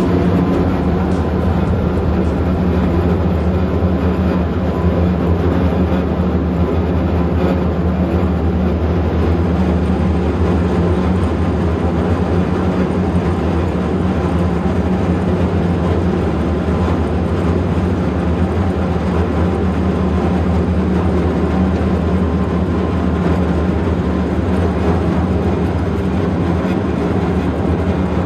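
Steady, loud drone of the sightseeing ship's engines under way, a constant low hum with a rushing noise over it.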